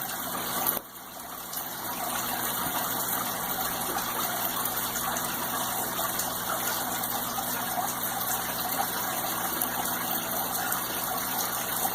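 Steady rushing background noise with a faint low hum, dipping briefly about a second in and then holding level.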